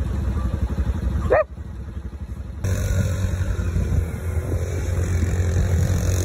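A small dog barks once, about a second and a half in, over a low rumble. After an abrupt change, four-wheeler engines run steadily.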